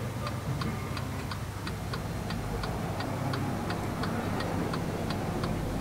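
Antique French cartel wall clock's brass movement ticking steadily and evenly, about three ticks a second.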